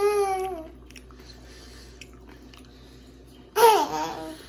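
A young girl laughing: a high squealing laugh that falls in pitch and fades within the first second, then another short burst of laughter about three and a half seconds in.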